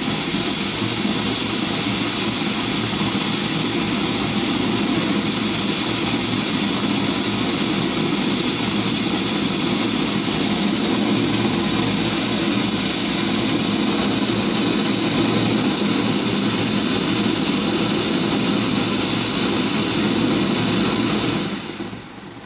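LPG torch burner flame burning with a steady hiss and low rumble, its gas metered by a PID-driven proportional valve. Near the end the sound dies away within about a second as the gas is shut off and the flame goes out.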